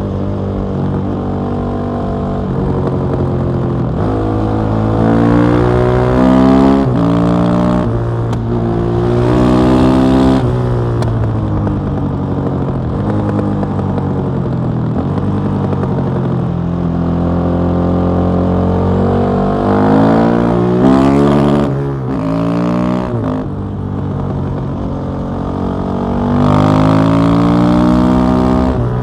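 KTM 660 SMC's single-cylinder four-stroke engine through an Akrapovic exhaust, heard on board while riding. It pulls hard with the pitch climbing and breaking off at each upshift three times in the first ten seconds, holds a steady cruise, then revs up hard again about twenty seconds in and drops back.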